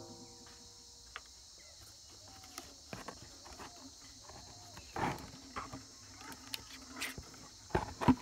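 Scattered knocks and clicks from handling and mounting a USB Bluetooth board in a wooden speaker cabinet, with louder knocks about five seconds in and near the end, over a steady high hiss and faint chirps.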